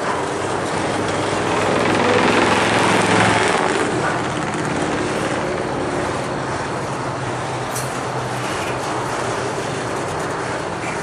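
Freight train of autorack cars rolling slowly past, its wheels on the rails making a steady rumble and rattle. A low engine hum runs under it for the first few seconds and then fades.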